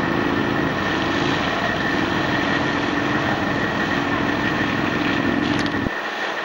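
A 6x6 amphibious ATV's engine running steadily under load as the machine ploughs through muddy puddles, with a steady high whine over the engine note. The deep part of the sound drops away abruptly near the end.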